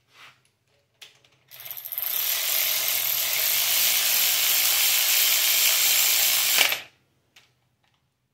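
Cordless electric ratchet running for about five seconds as it drives down a shaft-mount rocker bolt on an LS cylinder head, then stopping suddenly. A couple of short clicks come before it.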